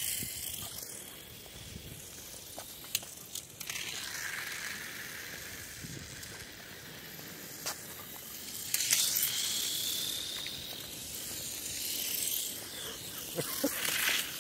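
Small electric motors of Tamiya mini 4WD cars whirring as they run on concrete: a steady high hiss, with a faint gliding whine around the middle and a few sharp clicks.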